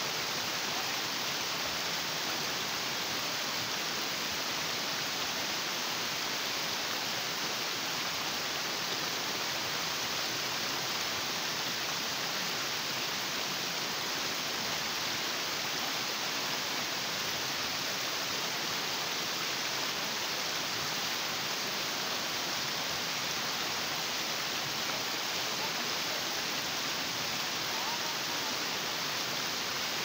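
Stream water cascading down sloping rock slabs and between boulders: a steady, even rush with a bright hiss, unchanging throughout.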